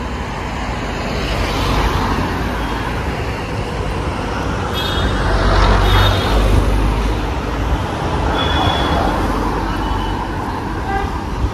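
Street traffic noise: cars and other vehicles driving past in a steady rumble, which swells louder as one passes close about five to seven seconds in.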